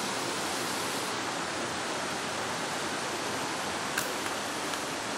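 Steady rushing noise, even and unbroken, with a single sharp click about four seconds in.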